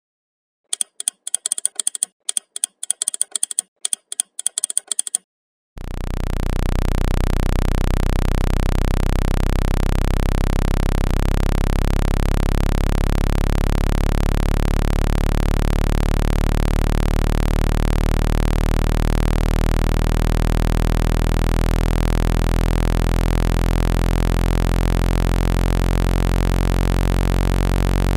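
A quick run of clicks for about four seconds. Then, about six seconds in, a low synthesized drone with many overtones fades in and holds steady: the low-frequency speaker-cleaning tone played to shake water out of a phone's loudspeaker.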